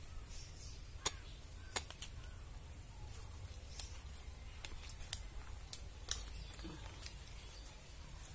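A knife blade hacking at a raw jackfruit's stalk: about seven sharp chopping clicks, irregularly spaced, over a low steady rumble.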